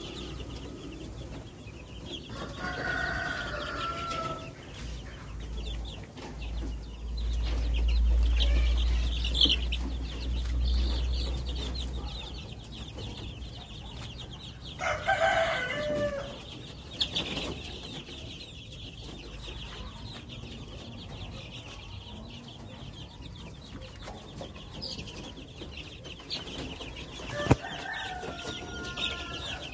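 Two-week-old KUB chicks peeping constantly, while a grown chicken gives three loud calls with a falling tail: near the start, midway and near the end. A low rumble swells for a few seconds in the first half, and a single sharp knock comes near the end.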